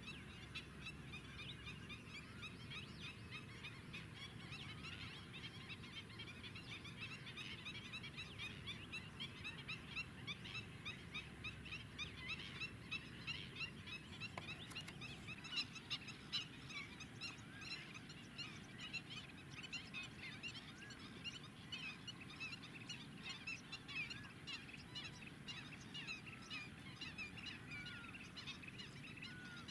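A flock of greater flamingos calling: a steady, fairly faint chorus of many overlapping short goose-like calls, a little louder around the middle, over a low ambient rumble.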